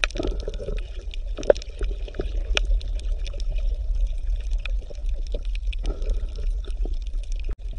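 Water sloshing and splashing as a group of penguins paddle along the surface, with many small irregular splashes over a steady low hum.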